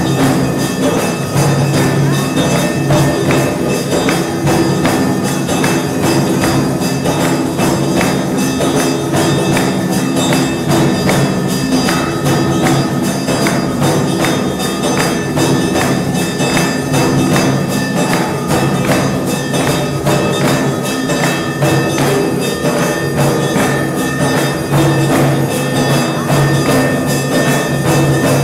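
Devotional temple music with fast, steady jingling percussion like cymbals and bells over sustained tones, continuous and without a break.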